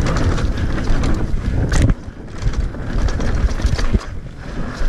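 Mountain bike riding fast down a dirt singletrack: wind buffeting the microphone over the rumble and rattle of tyres and bike on the rough trail, with a sharp clack about two seconds in.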